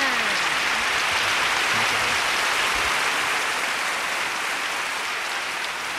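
Sea surf washing over shoreline rocks: a steady hiss of moving water that eases slightly near the end.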